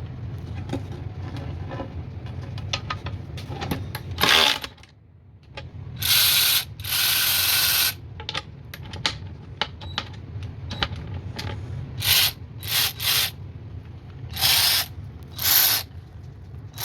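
Cordless 3/8-inch electric ratchet on a 20V battery running in about seven short bursts as the trigger is squeezed and released, the longest near the middle lasting about two seconds. It is straining against a fastener it is not powerful enough to turn.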